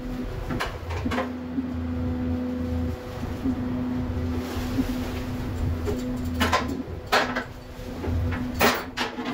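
Longline snap clips clacking sharply against metal gear about five times as they are handled, over the steady hum of the fishing boat's deck machinery, which drops out briefly a few times.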